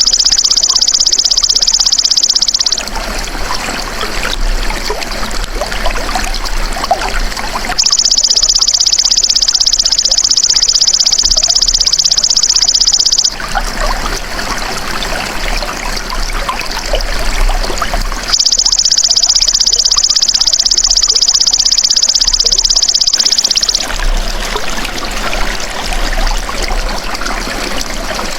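Belalang emas ('golden grasshopper') insect calling in a loud, steady, high buzzing trill for about five seconds at a time, three times, with pauses of about five seconds between. Trickling water runs underneath and is heard plainly in the pauses.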